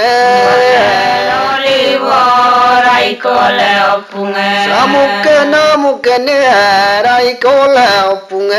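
Traditional Adi ponung song: a chanted melodic line sung in long phrases that hold and bend in pitch, with short breaks between phrases.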